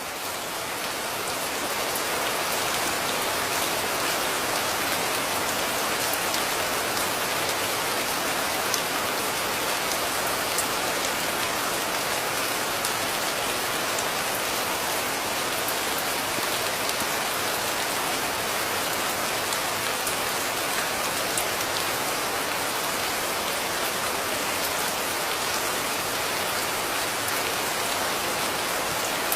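Steady heavy rain falling, with scattered individual drop ticks; it swells up over the first couple of seconds and then holds even.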